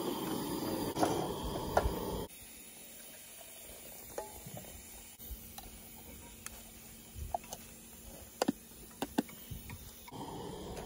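Scattered light clicks and taps of cooking utensils over a faint steady low hum.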